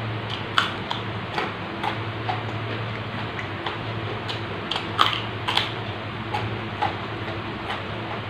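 Close-up crunching and snapping of raw papaya stalks and leafy greens being chewed, in irregular crisp crunches, the loudest about half a second in and about five seconds in.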